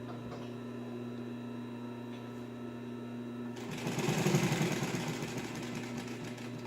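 The clutch motor of a Singer 111WSV14 triple-feed industrial sewing machine hums steadily. About three and a half seconds in, the machine starts stitching fast through layers of marine vinyl with a quick, even clatter that lasts a couple of seconds, then eases off.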